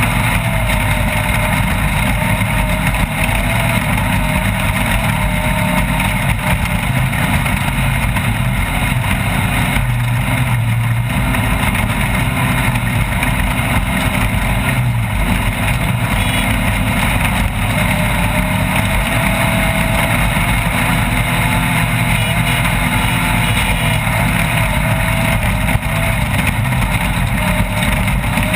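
Off-road race vehicle's engine running steadily at speed, its pitch wavering slightly, over a constant loud rush of noise.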